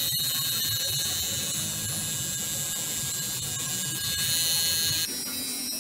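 Tattoo machine buzzing steadily while tattooing skin, its tone changing slightly about five seconds in.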